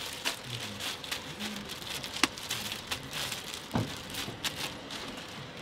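Sticky hotteok dough squelching and pulling while being worked by hand in clear plastic gloves, the gloves crinkling, with irregular sharp clicks and crackles.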